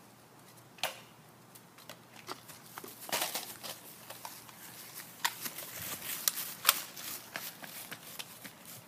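Irregular footsteps and scuffs of children running on a grass lawn, mixed with scattered sharp clicks and taps that grow denser from about a third of the way in, the sharpest about two thirds through.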